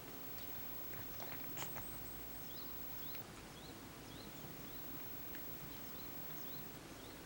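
A cat grooming its face, with a few soft licking clicks about a second in. From the middle on, a short high rising chirp repeats about twice a second.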